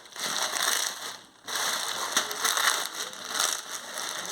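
Dry chowmein noodles being crushed by hand inside their plastic packet: crunching and crinkling in irregular bursts, with a short pause a little over a second in.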